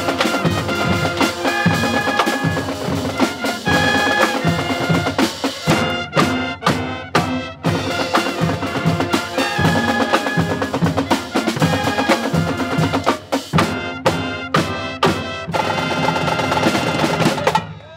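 High school pep band playing: brass (trumpets, saxophones, sousaphones) over a steady drum beat, with bursts of sharp accented hits from the whole band twice, and the music cutting off abruptly on a final hit just before the end.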